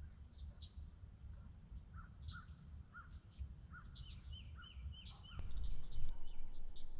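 Small birds chirping in short repeated calls, some with a quick falling hook, over a steady low rumble. About five seconds in there is a sharp click, and the low noise grows louder after it.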